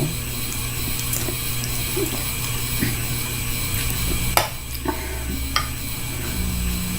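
A person eating ramen from a bowl with a spoon: a few sharp clicks, about four and a half to five and a half seconds in, over a steady low hum.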